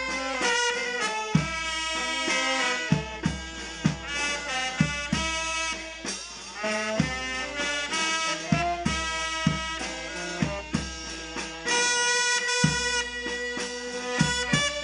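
Brass band of alto saxophones, trumpets and a baritone horn playing a melody together, over a steady drum beat of about one stroke a second.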